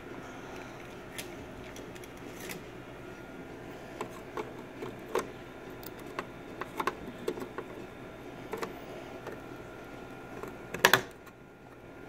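Scattered small clicks and taps of RAM modules being handled and pressed into the slots of a Mac Pro memory riser card, the slot latches snapping shut as they seat, with the loudest pair of clicks near the end.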